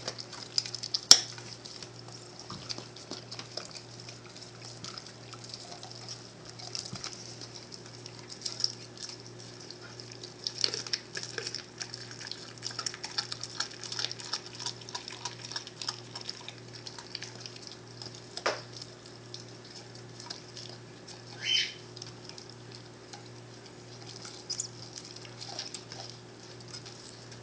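American Staffordshire Terrier chewing and tearing at a raw whole turkey: a steady run of small, irregular wet clicks from teeth, skin and meat, with a few sharper snaps and one short high squeak about three-quarters of the way through.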